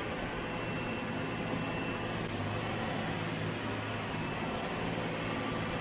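John Deere 9230 tractor's diesel engine running steadily as the tractor drives over a silage pile, packing it, heard from a camera mounted outside the cab.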